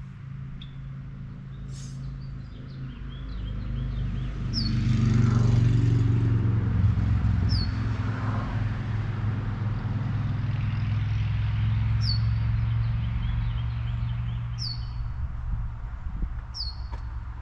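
A low engine hum swells over a few seconds, holds, and fades away near the end as it passes. A bird repeats a short falling chirp every two to three seconds.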